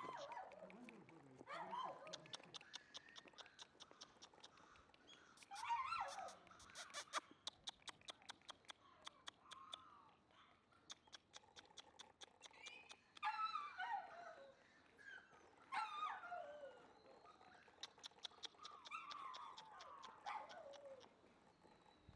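Black Shiba Inu puppy whining: a series of faint, high calls, each sliding down in pitch, with rapid faint ticking between them.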